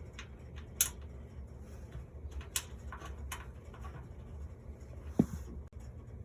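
Scattered light clicks and taps from handling PC build parts, over a steady low hum. The sharpest click comes a little under a second in, and a soft knock comes about five seconds in.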